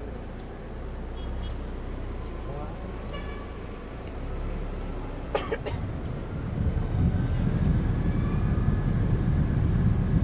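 Steady high-pitched drone of a chorus of insects in the forest at dusk. A low vehicle engine rumble swells up about two-thirds of the way through, and two sharp clicks come about five and a half seconds in.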